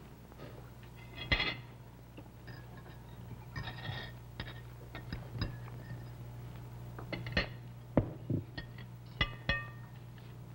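Cutlery clinking against china plates and bowls during a meal: a scattering of sharp, ringing clinks, irregularly spaced, over a steady low hum.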